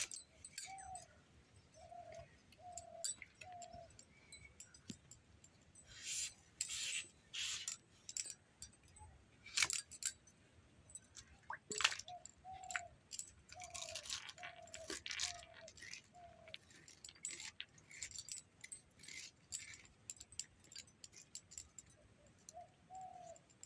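Knife cutting raw green papaya into pieces: irregular crisp cuts and clicks of the blade, some strokes louder than others.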